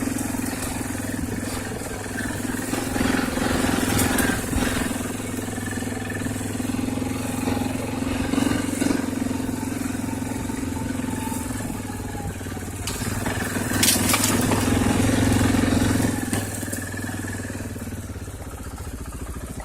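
Arctic Cat TBX 500 ATV engine running under way, the engine note rising and easing with the throttle. It is loudest a little past halfway, then drops to a lower, steadier running near the end. A few sharp knocks come through, the first about four seconds in.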